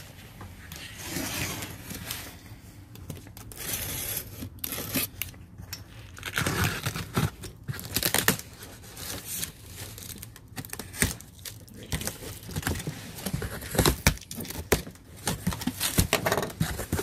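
A large cardboard box being opened by hand: tape tearing and cardboard and packaging rustling and scraping in irregular bursts with scattered clicks.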